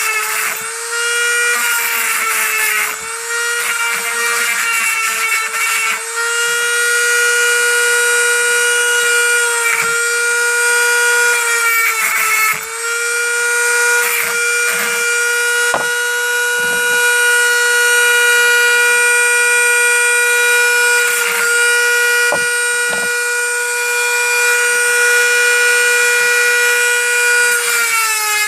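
Dremel rotary tool running at high speed with a steady high whine while grinding the end off a broken control-knob slider arm. Its pitch sags briefly several times as it is pressed into the work.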